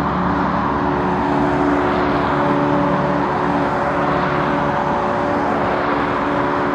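Jet airliner engines running: a steady noise with several held tones underneath.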